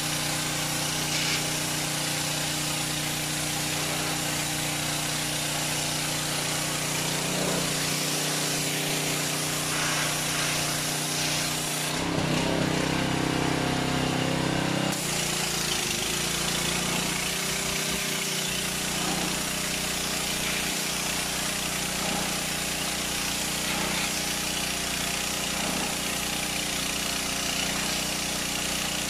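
Ferrex petrol pressure washer running steadily, its small petrol engine humming under the hiss of the high-pressure spray on concrete. About twelve seconds in, the sound turns heavier and duller for about three seconds, then returns to the same steady note.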